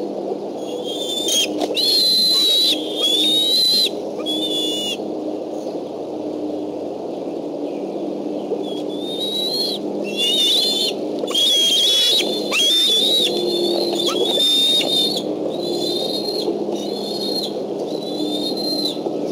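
Bald eagle giving a series of high, thin whistled calls, each note under a second long and mostly level, in two bunches with a pause of a few seconds between them.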